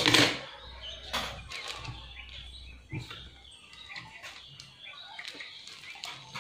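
Cloth rustling and small scattered clicks as fabric is shifted and smoothed under a domestic sewing machine's needle while the machine is stopped. There is a short louder noise right at the start.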